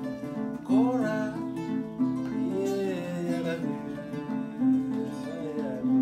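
Music: acoustic guitar playing, with a voice singing a couple of short phrases.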